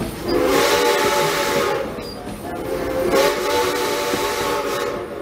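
Steam locomotive whistle blowing two long blasts, a couple of seconds apart, each a steady pitched tone with a breathy hiss of steam.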